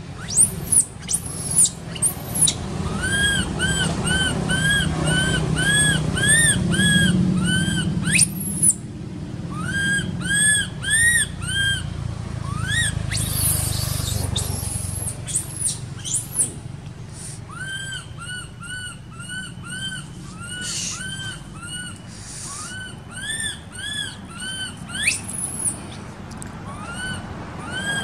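Baby macaque crying: long runs of short, high squeals that rise and fall, about three a second, broken by pauses. A low rumble sits under the first half.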